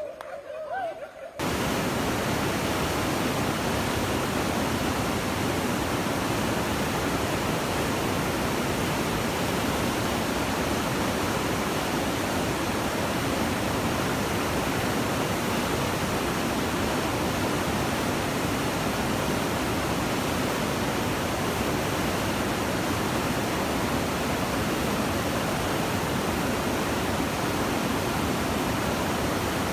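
A mountain stream in flash flood, muddy water rushing over rocks in full spate: a steady, loud rush of water that starts suddenly about a second and a half in, after a brief voice.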